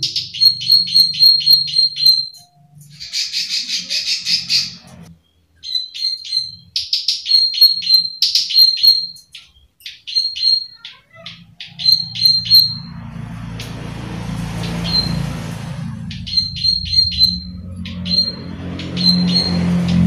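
Plain prinia giving fast runs of sharp, high clicking 'klik' calls, several a second, with a buzzy rattling call about three seconds in. A low rumble with a hiss rises behind the calls about twelve seconds in and again near the end.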